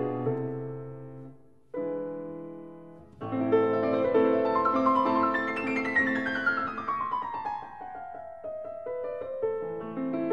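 Background piano music: slow chords that fade away, then a falling run of notes about six seconds in.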